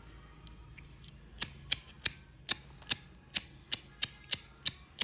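Horizontal flint wheel of an old brass lighter being struck over and over, giving about eleven sharp clicks at roughly two to three a second after a few faint ticks.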